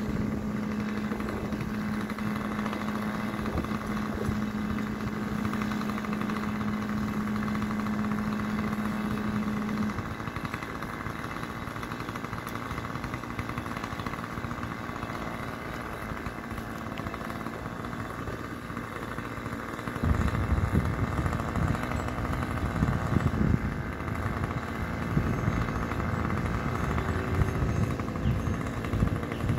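A small engine running steadily, which stops about ten seconds in. From about twenty seconds in an uneven low rumble grows louder.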